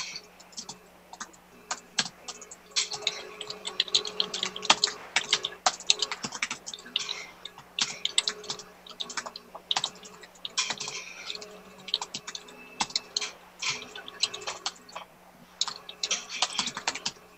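Typing on a computer keyboard: quick, irregular key clicks in runs with short pauses, over a faint steady hum.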